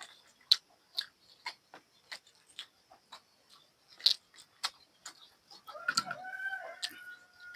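Close-miked crunchy chewing of bony buffalo meat, sharp crunches about twice a second. Near the end a short wavering pitched call comes in over it.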